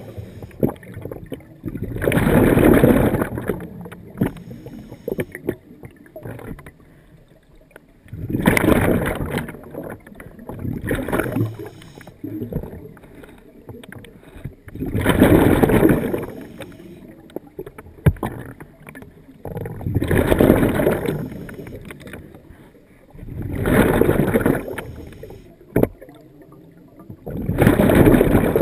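Scuba diver breathing through a regulator: a rush of exhaust bubbles comes about every five seconds, six times, with quieter stretches between breaths.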